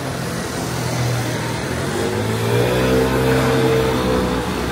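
A motor vehicle's engine passing close by on a city street, loudest about three seconds in, with its engine note rising and then easing off.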